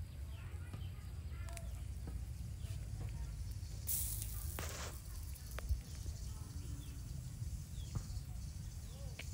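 Hot charcoal under a fish grill, with occasional faint pops over a steady low rumble; about four seconds in, a brief hiss of steam as liquid hits the glowing coals, followed by a shorter second hiss.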